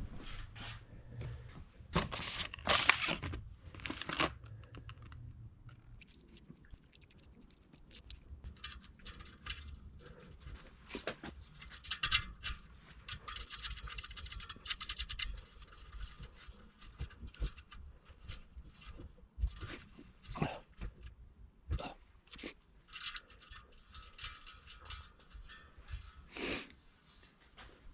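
Irregular handling noises in a small room: scattered clicks, light knocks and rustling, busiest a couple of seconds in and again near the end.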